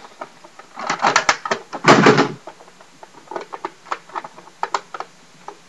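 Clicks, knocks and rattles of a plastic toy dart gun being handled as its magazine clip is worked at, stuck and hard to pull out, with a louder half-second rattle about two seconds in.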